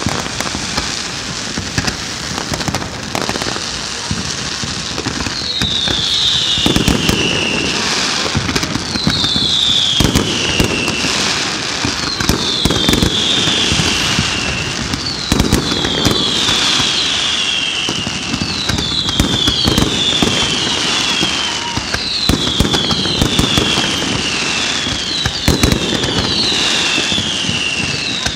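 Fireworks display: dense crackling and popping with bangs, and from about six seconds in a string of falling whistles, one every second or two.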